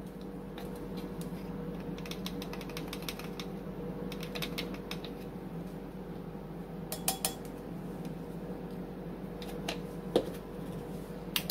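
Light clicking and tapping of a plastic measuring spoon as ground cinnamon is scooped and tipped into a bowl of milk. The clicks are rapid for the first few seconds, then come as a few sharper single clicks, over a steady low hum.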